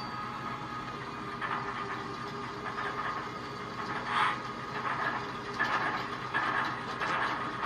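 ESU LokSound sound decoders in HO scale GE ES44AC diesel models playing diesel engine running sounds through small speakers, with short hissing bursts starting about four seconds in.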